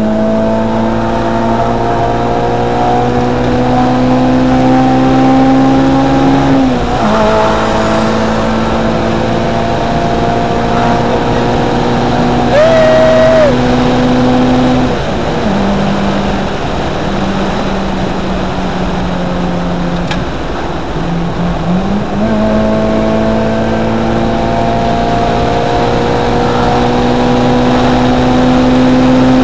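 Toyota 4A-GE 20-valve twin-cam four-cylinder engine pulling a manual Corolla through its gears, heard inside the cabin: the engine note climbs steadily under acceleration, drops at gear changes about a quarter of the way in and again about halfway, then dips and climbs again. A brief high wavering tone sounds about halfway through.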